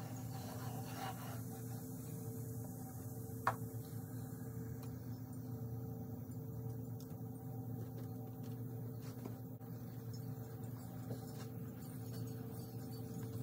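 Steady low machine hum, with a single sharp tap about three and a half seconds in.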